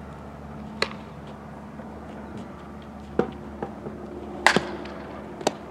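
Sharp knocks of a softball popping into leather fielding gloves and off a bat during an infield throwing drill: one about a second in, then a cluster of several from about three seconds on, the loudest about four and a half seconds in.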